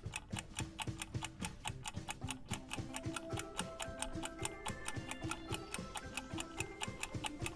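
Countdown timer sound effect: a clock ticking quickly and evenly, about four to five ticks a second, with soft music notes held underneath.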